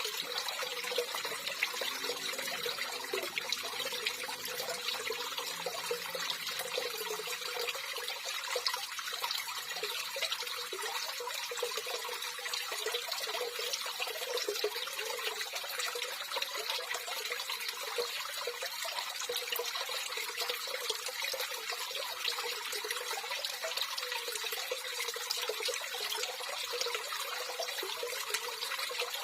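Running water flowing steadily and continuously.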